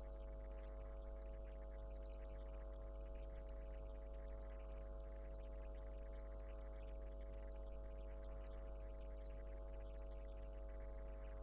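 Steady low electrical mains hum with faint hiss, unchanging throughout.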